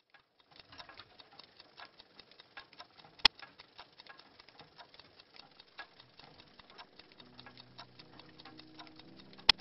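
A rapid, irregular patter of small clicks, several a second, with two much louder sharp clicks: one about three seconds in and one at the very end.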